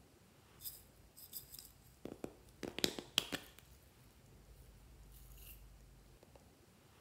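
Handling of a small plastic cup of confetti: light plastic clicks and jingly taps, with the loudest cluster of sharp clicks between two and three and a half seconds in.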